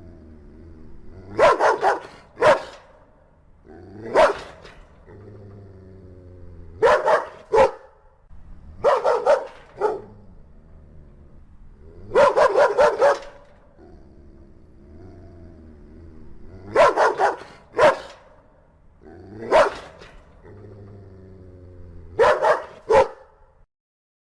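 Large dog barking in clusters of one to four barks every two to three seconds, with low growling between the clusters.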